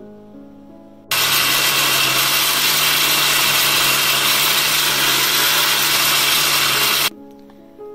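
Countertop blender running at full speed, grinding a liquid mix of nuts and spices in milk. It starts abruptly about a second in, runs steadily for about six seconds, and cuts off sharply near the end, with soft piano music before and after.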